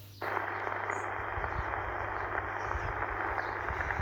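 Sony ICF-SW100 shortwave receiver tuned to 14,250 kHz on the 20-metre band, its speaker giving a steady band-limited hiss of static. The hiss cuts in suddenly a fraction of a second in as the audio unmutes after tuning.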